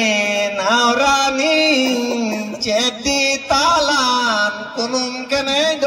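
A singer's voice, amplified through a microphone, singing a drawn-out folk melody in long held notes that waver and slide in pitch, in several phrases with short breaths between them.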